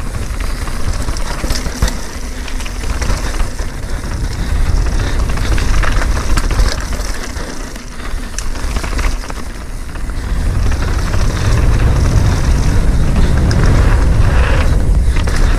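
Mountain bike descending rough technical dirt trail: a steady low rumble with scattered knocks and clatter from the bike over the terrain, growing louder about two-thirds of the way through.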